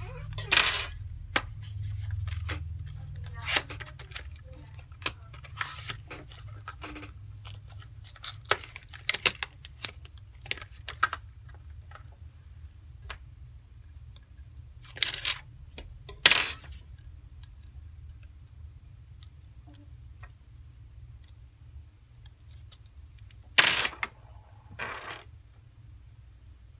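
Irregular small clicks and metallic taps of repair tools and iPhone 5c parts being handled and set down on a workbench, with a few louder clicks, over a steady low hum.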